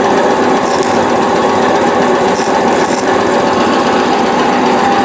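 Arc welding with a stick electrode: a dense, steady crackle over a constant machine drone. Short hissing flares come about a second in and twice more between two and a half and three seconds.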